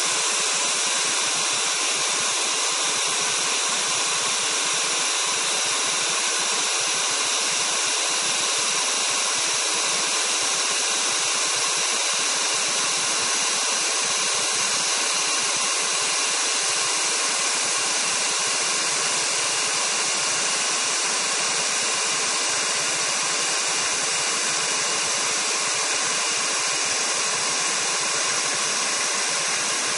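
Steady hiss of hot gas streaming from a FINEPLACER hot gas rework system's nozzle as it works residual solder off the BGA pads, holding the same level throughout.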